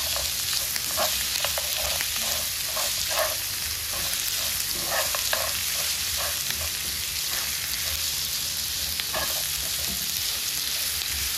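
Goat meat with diced onions and garlic sizzling in ghee in a pan, stirred with short, irregular scrapes and knocks of the utensil against the pan.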